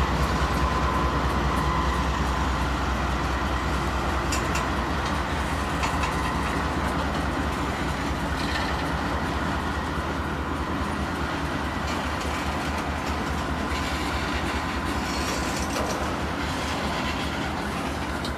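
CSX freight train rolling past: the diesel locomotives' low rumble eases off as they pull away, while the freight cars' wheels click over the rail joints now and then.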